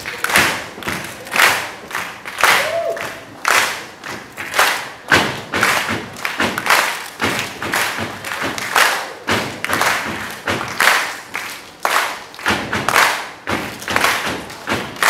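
A steady beat of loud thumps and sharp clap-like hits, a little under a second apart, with a short shout now and then.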